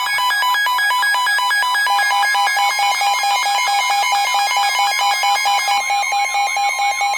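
Several NOAA weather radio receivers sounding their alert alarms at once: overlapping electronic beeping and warbling tones, set off by an incoming severe thunderstorm warning. About six seconds in, a steady tone joins them, the broadcast's 1050 Hz warning alarm tone.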